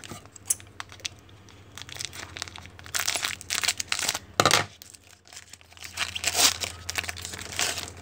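Foil trading-card pack wrapper being torn open and crinkled by hand, in irregular crackling bursts, the loudest stretches about three seconds in and again about six seconds in.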